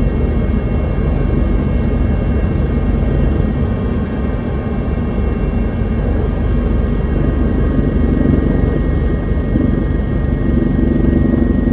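Helicopter running steadily: a loud, even low rumble with a thin steady whine above it.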